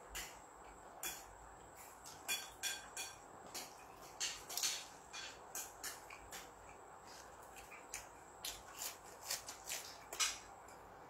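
Eating with the fingers: irregular light clicks and crunches, about two a second, from fingers picking through food on a wooden tray and from chewing.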